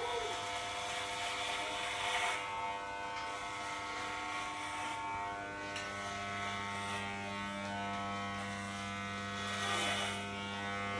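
Electric hair clippers running with a steady buzz while cutting hair.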